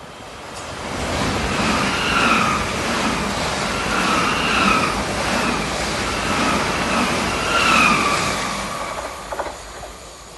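A Class 387 Electrostar electric multiple unit passes at speed. The rumble of wheels on rail swells and then fades, and a whine from its electric traction equipment rises and dips several times as the cars go by.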